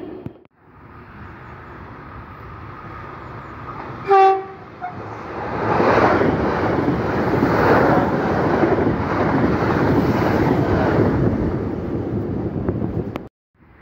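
An electric multiple-unit passenger train gives one short horn blast about four seconds in, then passes close by at speed with a loud rush of wheel and rail noise that builds and fades away.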